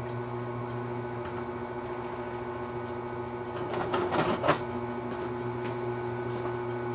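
Benchtop drill press starting up and running with a steady motor hum. About three and a half seconds in, the bit bites into steel flat bar for about a second with a rough grinding noise, then the motor runs on steadily.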